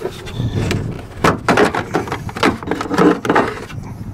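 Plastic cover over a pickup's underhood power block being unclipped and pulled off: a run of sharp plastic clicks and knocks, most of them from about a second in.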